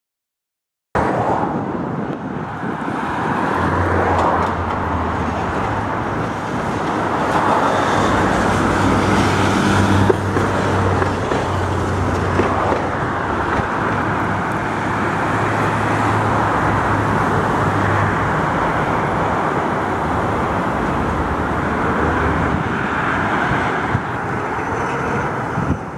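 Steady road traffic mixed with a Tatra T3SU tram passing underneath; a low steady hum runs through most of it. The sound starts about a second in.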